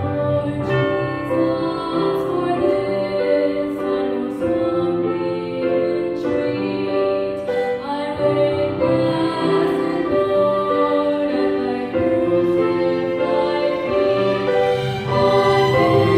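A small group of women singing into microphones, accompanied by a grand piano and a conducted instrumental ensemble.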